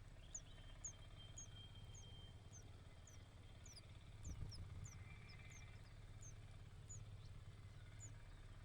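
Faint, high, short chirps from a bird, repeated about twice a second, each sliding down in pitch, over a low hum.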